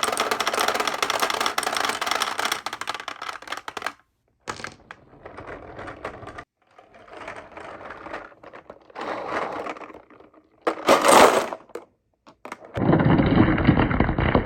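Marbles rolling and clattering along a marble run's tracks and slopes, a dense rattle of clicks. It comes in several separate stretches with sudden breaks between them, and there is a louder clatter about eleven seconds in.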